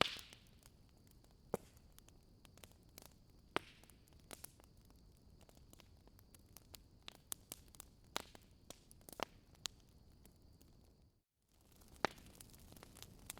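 Wood fire crackling in a fireplace: irregular sharp pops and snaps over a low steady hiss, with a faint high whistle. Near the end it cuts out for a moment, then the crackling resumes.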